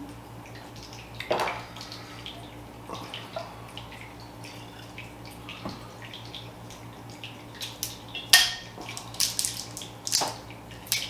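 Whiskey bottle being opened and poured into a glass: a trickle of pouring liquid, then sharp clicks and crinkles of the bottle's cork and plastic seal near the end.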